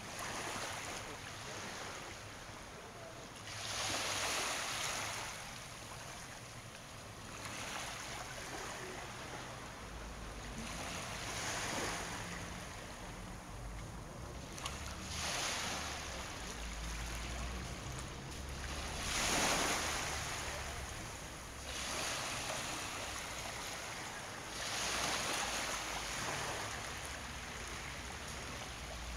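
Small waves washing in at the shoreline, a hissing swell every three to four seconds, over the low steady hum of the inflatable lifeboats' outboard engines idling.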